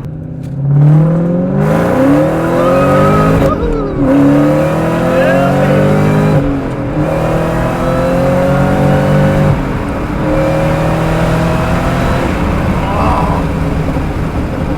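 2004 SVT Cobra's supercharged 4.6-litre V8 through a Borla ATAK exhaust, accelerating hard. The revs climb and drop back at three upshifts, about 4, 6.5 and 10 seconds in.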